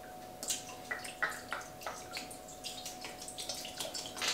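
Worcestershire sauce dripping and splashing in short irregular spurts from a bottle's narrow neck into a metal mixing bowl of marinade.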